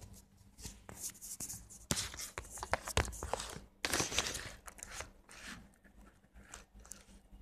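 Stretch lycra chair cover rustling and sliding as it is pulled down over a wooden dining chair, in irregular bursts with a few sharp knocks, busiest in the middle.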